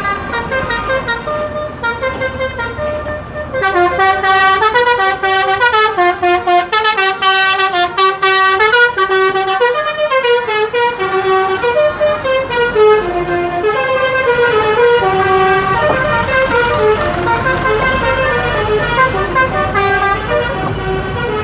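Bus telolet horns, multi-note musical horns, playing a quick stepping melody of short tones, getting much louder about three and a half seconds in.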